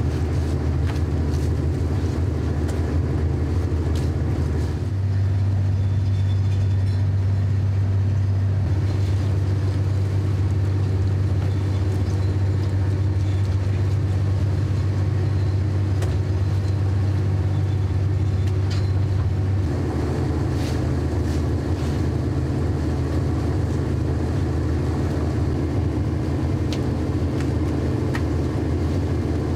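Fishing trawler's engine running steadily, a low drone heard on deck. Its tone shifts about five seconds in and again near twenty seconds, with a few faint clicks over it.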